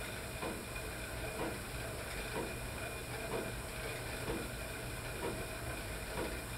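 Stationary cycle ergometer pedalled at a steady cadence of about 60 RPM under set resistance, with a soft rhythmic whoosh about once a second over a steady hiss.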